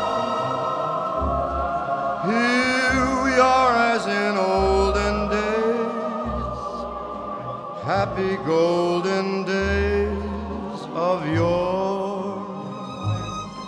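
Background music: a choir singing long held notes over low bass notes.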